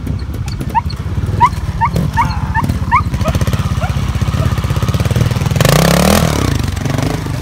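Trial motorcycle engine idling with a steady low beat, given one quick blip of the throttle about six seconds in. A run of short, high-pitched chirps sounds over it about one to three seconds in.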